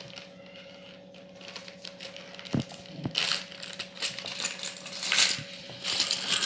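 A plastic bag of small letter tiles crinkling as it is opened and handled, the tiles clicking and clattering inside it. The crinkling and clatter grow louder from about halfway through as the tiles begin to spill out onto the game board, over a faint steady hum.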